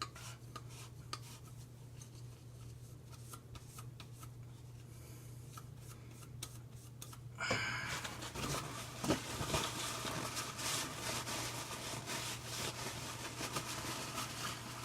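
Scrubbing and wiping the grime off a sink drain tailpiece by hand: faint handling clicks at first, then from about halfway a steady rustle of rubbing strokes.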